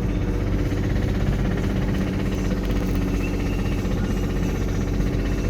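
Toyota MR2's original engine running steadily at about 2,000 rpm while the car is driven, with the engine knocking.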